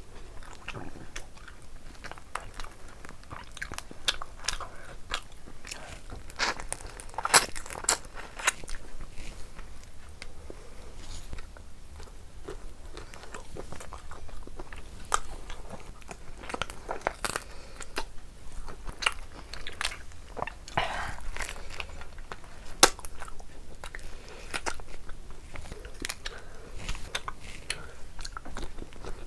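A person chewing and biting with crisp crunches, eating fried fish and rice by hand. The crunches and mouth clicks come irregularly, the loudest about 7 and 23 seconds in.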